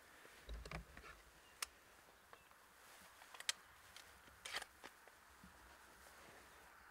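Near silence with a few faint clicks and soft knocks of handling, scattered and unevenly spaced, the sharpest about three and a half seconds in.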